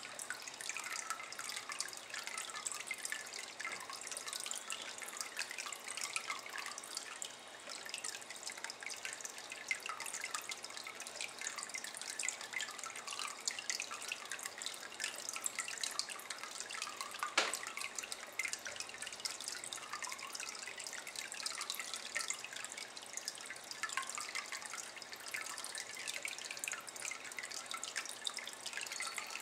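A thin stream of water falling into a water-filled ceramic basin, a continuous trickle of many small drips and splashes, with one sharper plink a little past halfway.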